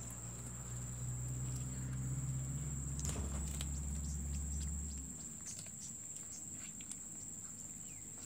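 Cats eating rice off a metal plate: scattered small clicks and ticks of chewing and of food and mouths against the plate. Under them runs a steady high-pitched whine, and a low drone stops about five seconds in.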